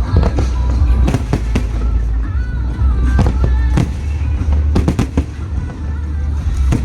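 Aerial fireworks shells bursting in a run of sharp bangs, a dozen or so, coming irregularly and sometimes in quick pairs, over a low rumble.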